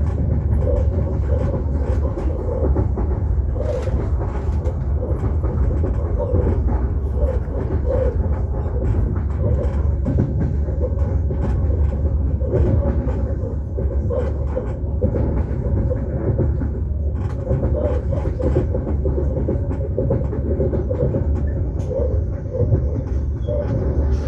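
Electric commuter train running, heard from inside the carriage: a steady low rumble with scattered light clicks and knocks from the wheels and car body.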